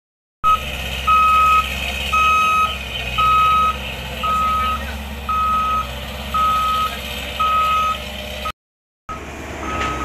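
Reversing (travel) alarm of a CAT M317D wheeled excavator: a steady single-tone beep about half a second long, repeating roughly once a second, over the low hum of the diesel engine. The sound cuts out briefly near the end.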